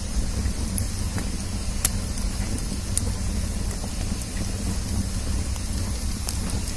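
Wood fire burning in a brick hearth, with scattered sharp crackles and pops, one louder pop about two seconds in, over a steady low rumble and hiss.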